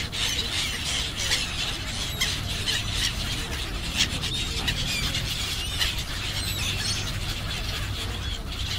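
A large flock of black-headed gulls calling together, a dense chatter of short squealing calls over a steady low rumble.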